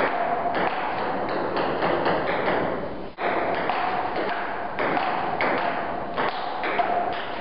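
Table tennis rally: a ping pong ball clicking off rubber paddles and bouncing on the table in a quick, irregular run of taps, with a brief break about three seconds in.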